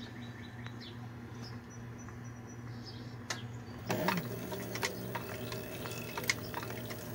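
Cobra Class 26 leather sewing machine: the motor hums steadily, then about four seconds in the machine starts running with the bobbin winder spinning. Its mechanism gives irregular light clicks as it sews and winds the bobbin.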